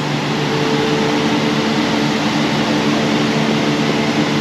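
Steady hum and rush of a building's air-handling (HVAC) system: a few steady low tones under an even hiss.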